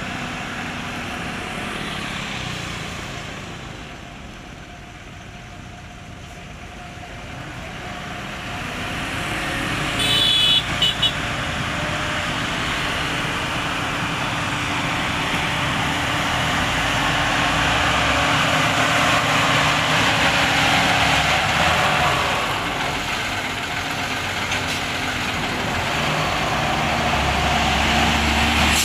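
A Sakai pneumatic-tyred road roller's engine runs as it works a fresh asphalt patch, and road traffic passes close by: motorcycles and a dump truck, louder as they go past. A vehicle horn gives a few quick short beeps about ten seconds in.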